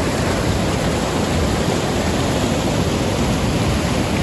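The Saraswati river's fast mountain water rushing steadily, an even, unbroken loud noise of churning water.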